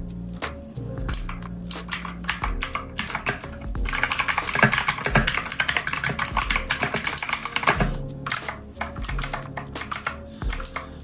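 Keystrokes on a Redragon Fizz K617 mechanical keyboard after a switch replacement: quick clicking taps, with a dense, fast run of typing from about four to eight seconds in. Background music with a bass line plays under it.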